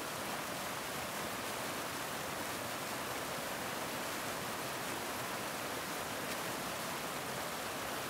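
Steady, even rushing noise of water, with no rhythm or pitch, faded in just before.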